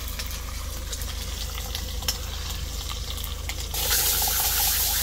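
Chilli and garlic frying in a pan, a steady sizzle with small pops and crackles. About three and a half seconds in, the sizzle suddenly turns louder and brighter.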